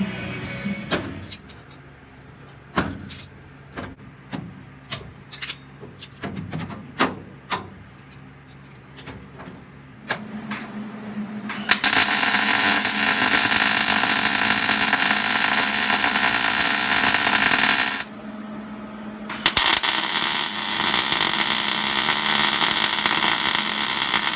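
Sharp clicks and knocks of clamps and tools on the sheet-metal floor pan, then two long runs of a loud, steady crackling hiss, about six seconds each, from welding the new floor pan in.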